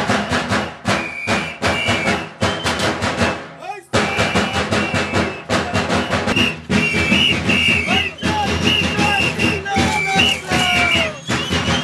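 Music with fast, dense drumming and high held piping tones over it, with a brief break about four seconds in.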